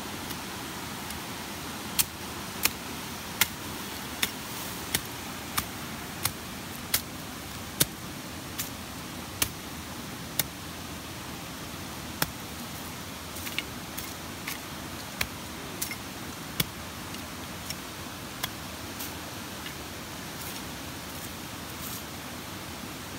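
Machete striking the ground and grass in a steady run of sharp hits, about one every 0.7 s, then weaker and more irregular strikes that stop about three-quarters of the way through, over a steady background hiss.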